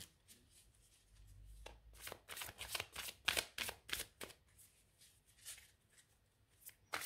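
A deck of tarot cards being shuffled by hand: a run of quick, papery flicks and slaps for a few seconds, thinning out to a few single clicks near the end.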